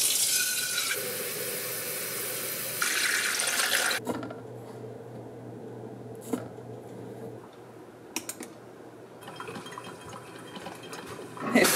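Kitchen tap running water for about four seconds, then shutting off abruptly. After that it is much quieter, with a few light clicks and knocks.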